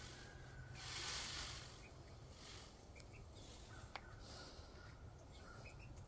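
Quiet farmyard ambience: a soft rustling swell about a second in, a few faint high bird chirps scattered through, and a single click near four seconds.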